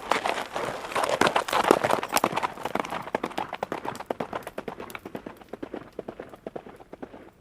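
Horse hooves galloping on the ground, a fast run of thudding hoofbeats, loud at first and fading as the horse moves away.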